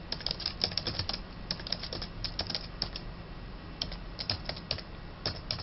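Computer keyboard typing: quick runs of keystrokes, with a pause of about a second midway.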